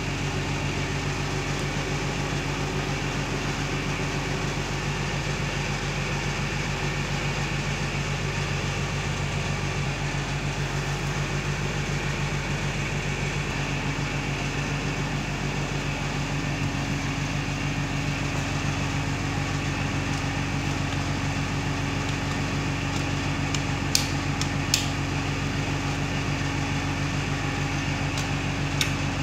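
Steady mechanical hum of a running motor, like a room fan or air conditioner, with a few sharp clicks near the end as a hand presses the rocker switches on a modular fan-regulator switch plate.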